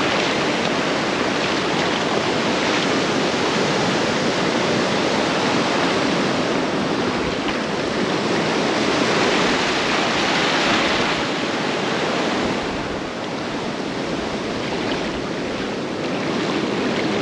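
Shallow beach surf washing over sand, a steady rushing wash with no breaks.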